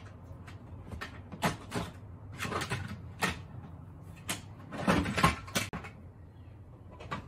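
Toys clattering and knocking in a plastic storage tub as a child rummages through it: a run of irregular short knocks and rattles.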